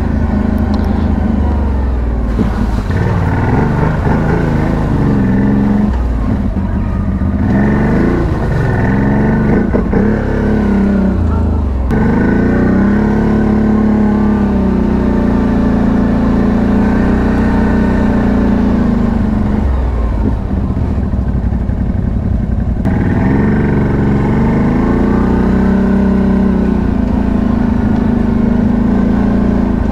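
ATV engine running under load on an off-road ride, its note rising and falling again and again as the throttle is worked.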